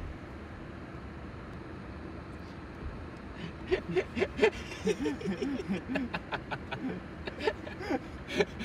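Steady low background rumble inside a car, then from about three and a half seconds in, low muffled voices talking in short bursts.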